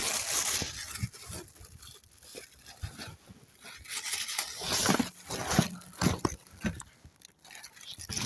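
Close rustling and crinkling of white woven plastic sacking and a dark fabric bag being handled and pushed aside, in irregular bursts with small crackles.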